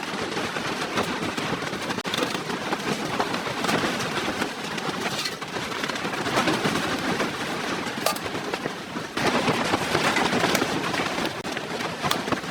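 Blizzard wind blowing hard and steadily, with scattered sharp cracks and clicks through it, growing louder about nine seconds in.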